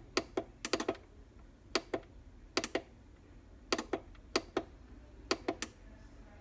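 Buttons on a Sboly single-serve coffee maker's control panel clicking as they are pressed again and again, about a dozen sharp clicks in small groups of one to three.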